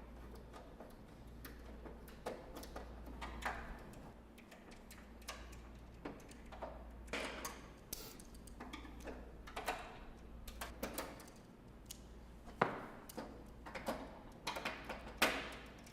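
Irregular clicks and light knocks of a hand tool and bolts as bolts are unscrewed from the plastic belt-drive cover of an exercise bike.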